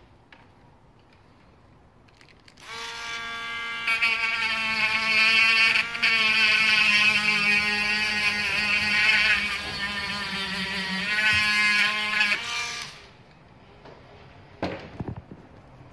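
A small motor running with a steady, slightly wavering whine. It starts about three seconds in, dips briefly twice, and stops about thirteen seconds in.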